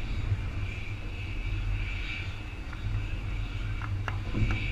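Distant jet airliner on final approach: a low, steady engine rumble with a faint hiss above it.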